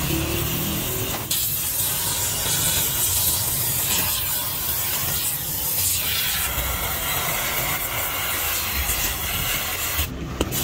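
Gas welding torch flame hissing steadily as it heats a cast gearbox casing, with a brief break about a second in and a short dropout near the end.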